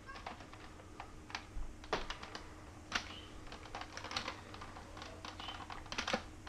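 Scattered light clicks and taps at irregular intervals, a few a second at most.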